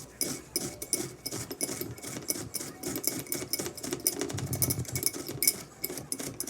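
Crushed Nacho Cheese Doritos crackling and crunching in a rapid, irregular run of small crisp clicks.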